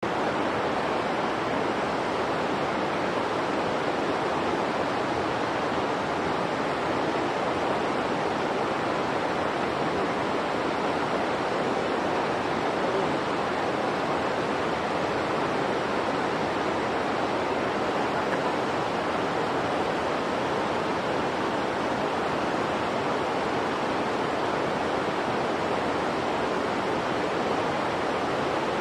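Steady, even rushing noise that does not change, with no distinct calls or knocks in it.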